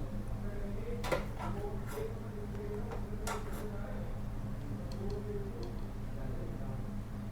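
A few sharp clicks and small ticks of hand tools on a phone circuit board while charging-jack pins are soldered, over a steady low electrical hum.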